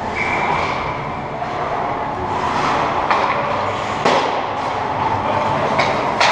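Ice hockey skates scraping and carving on the ice of an indoor rink. A brief high squeal comes near the start, and sharp clacks of sticks and puck follow about three and four seconds in, with the loudest clack near the end.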